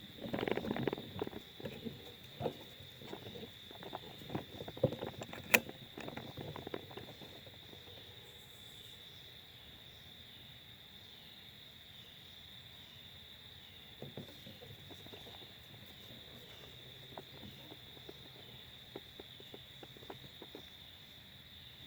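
Steady high-pitched chorus of crickets, with irregular rustling and clicks of someone moving about in the first several seconds, a sharp click about five and a half seconds in, and a few faint ticks later on.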